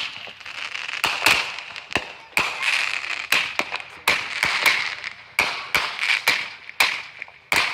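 Consumer fireworks going off: a run of sharp bangs at irregular spacing, about two a second, over a steady hiss.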